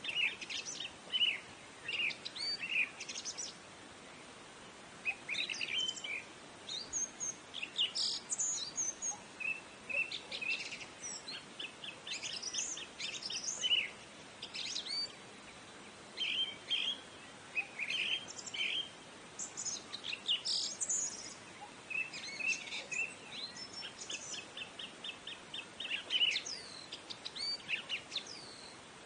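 Small songbirds chirping and twittering: a near-continuous run of short high calls and quick trills, broken by a few brief pauses.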